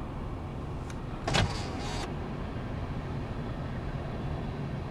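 Freight train cars rolling past over a road grade crossing, a steady low rumble, with one short loud burst of noise about a second and a half in.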